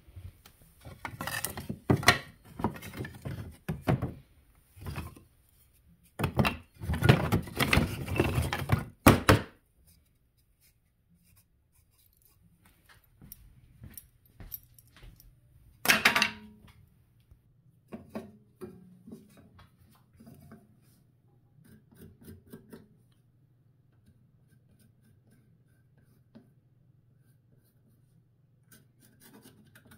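Wooden offcuts clattering and knocking against each other in a plastic tote as they are rummaged through, for about the first nine seconds, then a single loud thunk about halfway through. After that it is mostly quiet apart from scattered small knocks over a low steady hum, with light pencil scratching on wood near the end.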